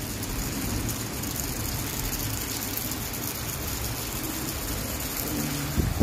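Steady rain falling, an even hiss with a low rumble underneath. Near the end comes a brief low hum and a sharp thump.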